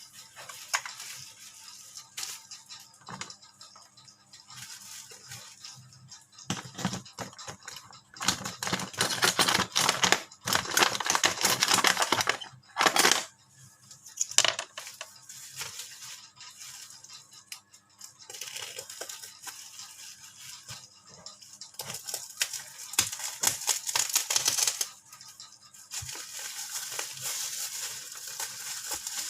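Packaging being handled and opened: irregular rustling, crinkling and tearing, loudest in a stretch about eight to thirteen seconds in.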